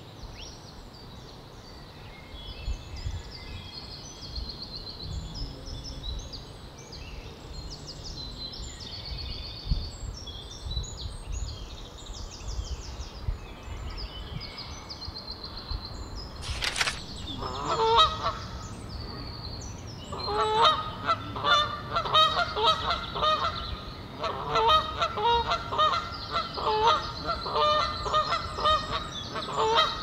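Canada geese honking, a rapid series of loud calls that begins a little past halfway and goes on to the end. Before the honking, small songbirds chirp faintly over a low wind rumble.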